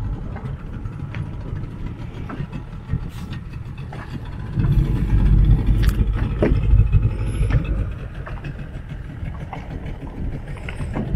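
Fishing boat's engine running steadily, growing louder for a few seconds in the middle.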